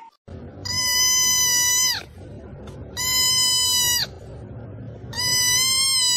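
Kitten meowing three times, each a long, steady, high-pitched call of about a second, with a pause of about a second between them.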